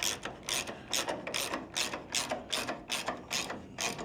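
Ratchet wrench clicking in quick back-and-forth strokes, about two to three a second, as a bolt is turned.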